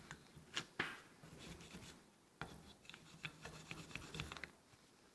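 Faint rubbing and scraping with a few light clicks, from hand-cleaning carbon off a throttle body and its butterfly.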